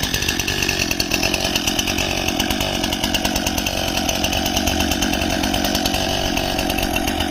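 Brand-new Stihl MS261 chainsaw's two-stroke engine running steadily at an even speed, just after being pull-started.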